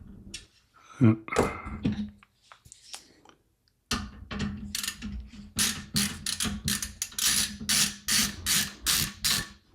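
Screws being undone with a screwdriver to free the riser cable bracket in a PC case. After a few handling knocks, a quick run of rasping clicks starts about four seconds in, about four a second.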